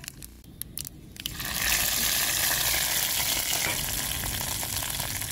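Sizzle of a hot mustard-oil tadka with curry leaves and dried red chillies poured into a yogurt-potato kadhi. A few light clicks, then a sudden loud hiss about a second and a half in that holds and slowly fades.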